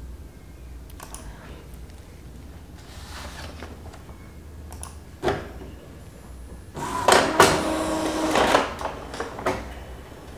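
Epson L3210 inkjet printer starting a nozzle-check print: a few light clicks and a sharper click about five seconds in, then the paper-feed and print-head motors run in a mechanical whirr for about three seconds.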